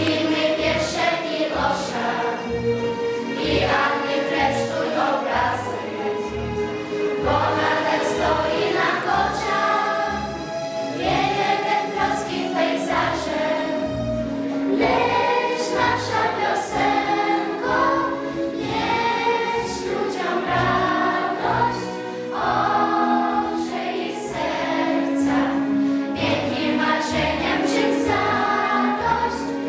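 A choir of schoolchildren singing a song over a backing track with a steady beat.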